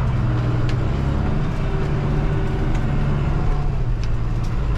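Ponsse Ergo forestry harvester's diesel engine running steadily, with a couple of faint clicks.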